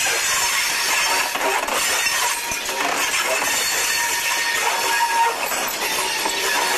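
Freight train of loaded hopper wagons rolling past close by: a steady rush and clatter of wheels and running gear with metallic clinking, and a short wheel squeal about five seconds in.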